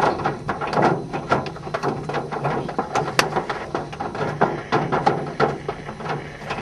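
Hailstones hitting the car: a dense, irregular run of sharp clicks and knocks, several a second.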